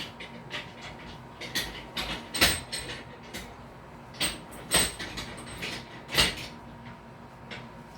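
Irregular sharp knocks and clatters of objects being handled and set down on a workbench, about seven in all, the loudest near the middle, over a faint steady hum.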